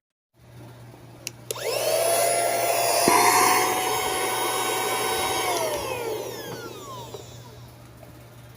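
Adorraa 4-in-1 cordless handheld vacuum cleaner switched on with a click. Its motor whines up to speed, runs steadily for a few seconds, then winds down with a falling whine.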